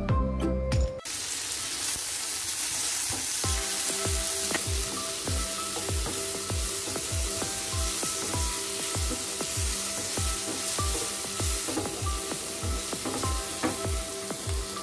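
Sliced onions sizzling in hot oil in a pan as they are stirred with a wooden spatula. It starts about a second in, replacing music, and runs over background music with a steady beat of about two pulses a second.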